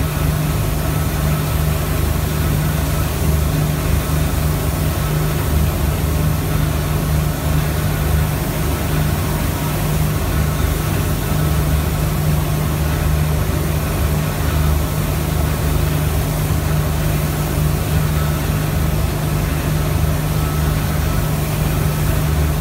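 A machine motor running steadily with a low hum, unchanging throughout.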